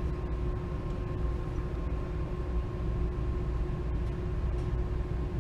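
Steady low machine hum with hiss and a faint steady whine, unchanging throughout, with no distinct clicks or beeps.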